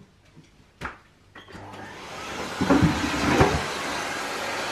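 A Miele S511 Cat&Dog canister vacuum cleaner switched on: a click about a second in, then the motor runs up with a few louder rough noises and settles into a steady suction hiss.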